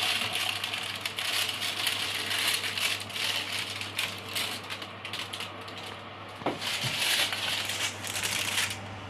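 Kitchen handling noise: irregular rattling and rustling, in two spells with a lull in the middle, over a steady low hum.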